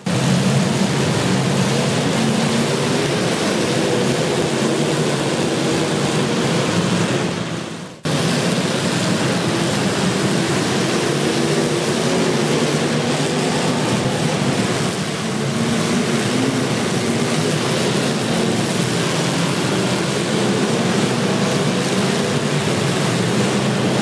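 Several demolition derby cars' engines running and revving at once, a loud, continuous mechanical din that briefly drops out about a third of the way through.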